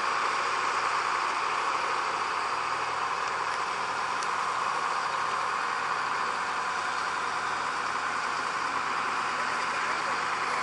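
Heavy track-maintenance plant engine idling, a steady, even noise that does not change.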